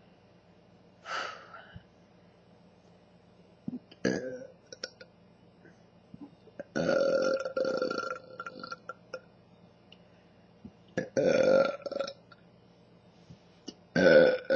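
A woman burping deeply from drinking Pepsi, five burps in all: two short ones, then a long drawn-out one of about two seconds, another about a second long, and a last one starting near the end.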